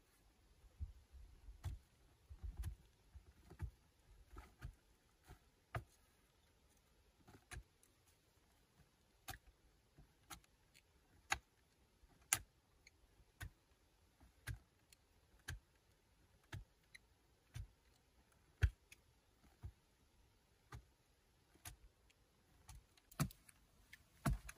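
Hand digging tool chopping into a packed earth wall, in sharp knocks about once a second.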